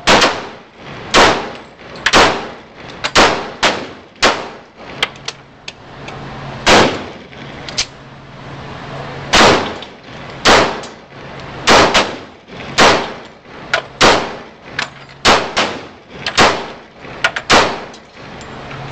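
Sig Sauer Scorpion pistol being fired, about two dozen shots at an irregular pace of roughly one to two a second, in strings broken by a few short pauses, each shot echoing.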